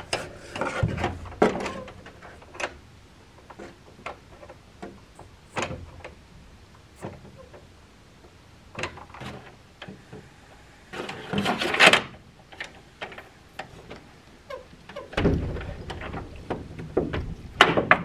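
Metal barn-door puller hardware being worked by hand: scattered clicks and knocks as the hook is turned and hooked into its receiver, with a louder scraping rattle about eleven seconds in and a low rumbling knock of the barn door shifting against its frame near the end as it is drawn tight.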